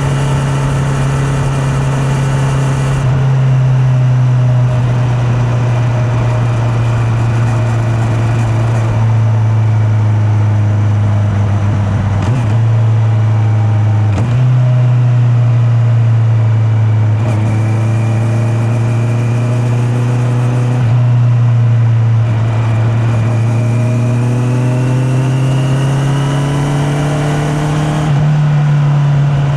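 Honda CB650R inline-four engine under way, heard from a mic in the rider's pocket. Its note sinks slowly and rises again with the throttle. There are sudden pitch jumps at gear changes around the middle and near the end.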